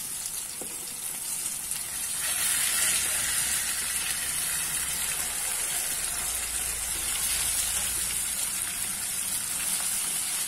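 Breaded tilapia pieces frying in hot oil in a pan: a steady sizzle.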